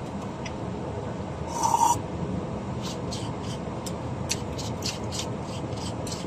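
Eating sounds from someone chewing takoyaki: a run of short wet clicks and lip smacks in the second half, over a steady low hum. About two seconds in there is a brief hissing burst with a short tone.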